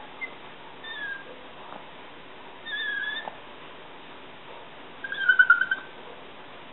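Yorkshire terrier whimpering in thin, high-pitched squeaks, about four of them, the last and loudest a wavering one about five seconds in: a dog begging for food.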